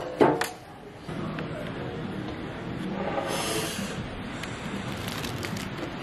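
A sharp knock as a camera is set down on a tabletop, then steady outdoor terrace background hum with a brief hiss about three seconds in.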